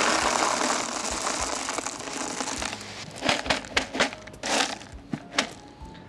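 Expanded clay pebbles (ceramsite) poured from a woven sack into a plastic pot: a steady rattling rush for nearly three seconds, laying the drainage layer. Then a run of separate crinkles and clicks as plastic bag packaging is handled.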